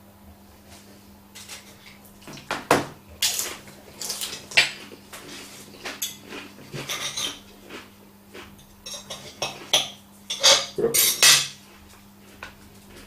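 Knife and fork scraping and clicking against a plate as food is cut, in irregular strokes. The louder ones come about three to five seconds in and again around eleven seconds. A faint steady low hum runs underneath.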